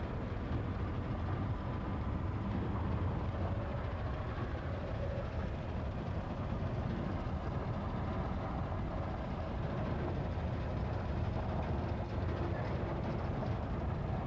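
Vehicle driving, heard from inside the cab: a steady low rumble of engine and road noise.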